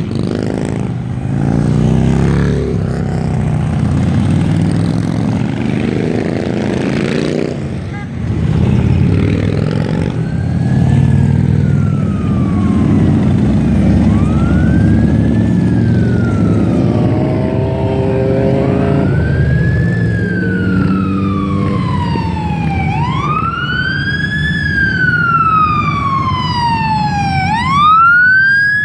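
A procession of motorcycles rumbles past. From about a third of the way in, a fire truck's wail siren rises and falls in slow sweeps, each rising over about a second and falling over several. The siren grows steadily louder as it approaches and is loudest near the end.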